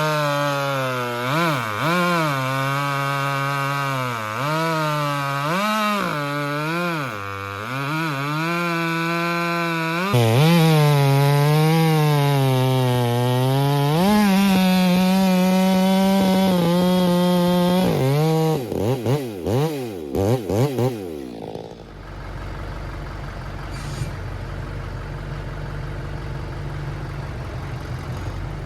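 Chainsaw bucking wood: the engine runs at full throttle, its pitch sagging and recovering again and again as the chain bogs in the cut, then holding high. About 18 seconds in it is blipped several times and shut off. A lower, steady engine hum then carries on.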